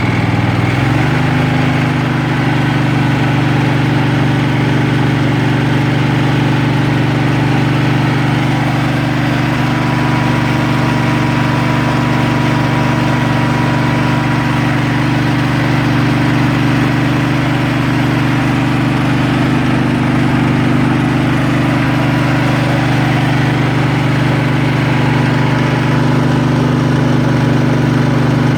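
Kohler Command engine of a Craftsman riding mower running steadily. Its speed picks up slightly in the first second, then holds even.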